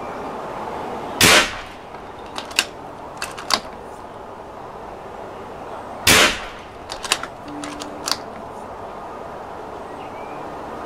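Two shots from an unsilenced .22 air rifle, about five seconds apart, each a sharp, really loud crack. A few lighter clicks come between them as the rifle's action is worked.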